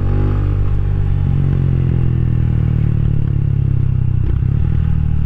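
Rusi Classic 250's single-cylinder LX166FMM engine running steadily while the motorcycle is ridden, with a slight change in engine pitch near the start.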